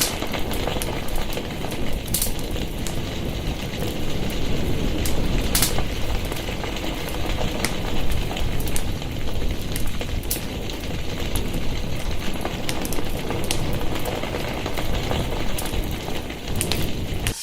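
Fire burning: a steady rushing noise with many sharp crackles and pops scattered through it.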